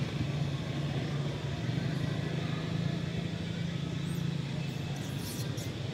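Steady low engine hum, with a short high chirp and a few brief high clicks near the end.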